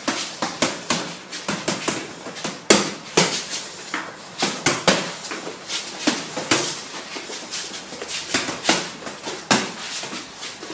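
Boxing gloves hitting focus pads during pad work: a string of sharp smacks in quick combinations, about three a second, with short pauses between flurries.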